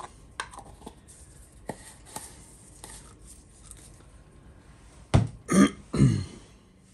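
Scattered light clicks and taps of small objects being handled, then three loud, short noises in quick succession about five seconds in.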